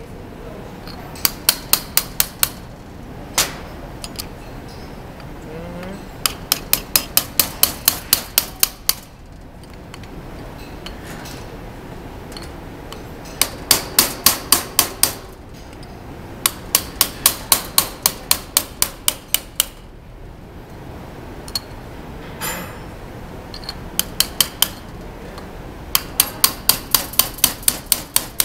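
Small hammer tapping a brass punch against the internals of a CV joint clamped in a vise, seating the parts back into place. Sharp metallic taps come in quick runs of about five a second, several runs with short pauses between.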